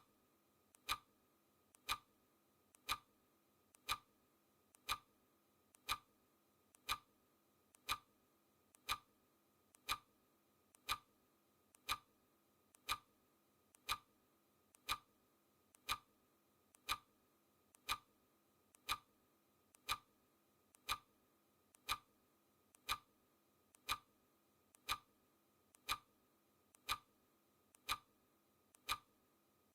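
Clock ticking sound effect: a crisp, steady tick once a second, each tick preceded by a faint smaller click.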